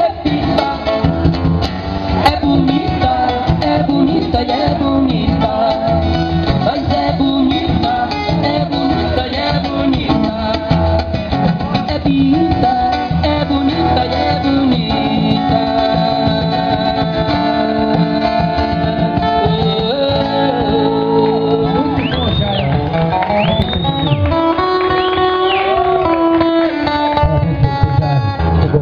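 A live song: a man singing into a microphone, accompanied by his own amplified guitar. Near the end, a few high tones swoop up and back down.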